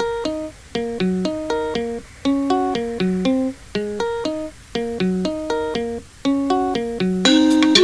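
Home-made instrumental music made with free software and recorded through a cheap microphone: a melody of short plucked notes in repeating phrases, with brief breaks between phrases.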